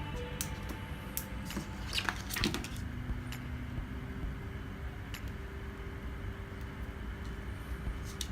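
Scattered small clicks and taps, with a short cluster of knocks about two seconds in, over a steady low hum: tools and phone parts being handled on a repair bench.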